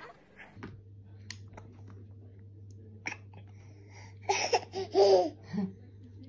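A baby babbling in a few short vocal sounds about four seconds in, over a faint steady hum with a few light clicks.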